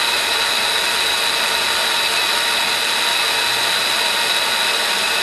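Propane hand torch burning with a steady, even hiss.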